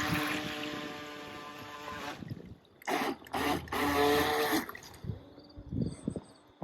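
A small boat's motor running with a steady whine, which cuts off about two seconds in and then runs again in three short bursts. After that come quieter water sounds and small knocks.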